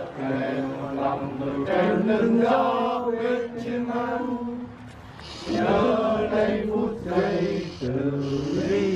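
Male voices chanting together in long held notes, as in funeral chanting, with a brief pause about five seconds in.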